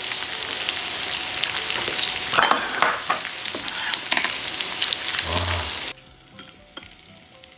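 Beef ribs sizzling and crackling on a tabletop electric grill plate, with frequent sharp pops of fat. The sizzle cuts off suddenly about six seconds in.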